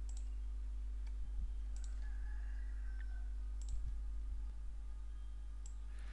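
A few sharp computer mouse clicks, spaced about two seconds apart, over a steady low electrical hum.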